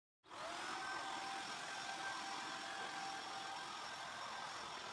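A small motor spinning up with a rising whine, then running steadily with a hiss and a steady high whine.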